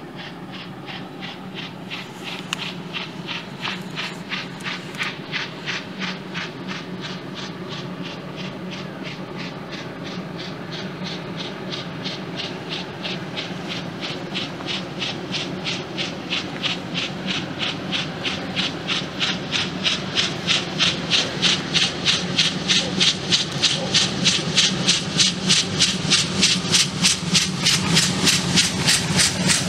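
Steam locomotive approaching under power, its exhaust beats a steady, even chuffing that grows louder as it nears, over a low rumble from the train.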